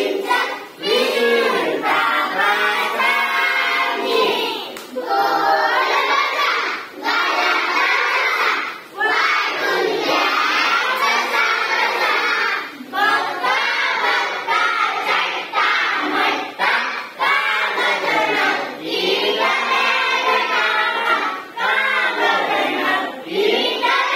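A large group of schoolchildren singing a song together in chorus, in phrases with brief breaks between them.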